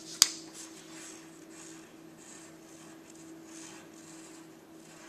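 Pencil lead scratching on paper in short strokes as a word is written by hand. A single sharp click comes right at the start, and a faint steady hum runs underneath.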